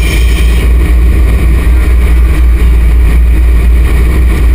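Caterpillar 320 hydraulic excavator's diesel engine running, heard from inside the operator's cab as a loud, steady low rumble.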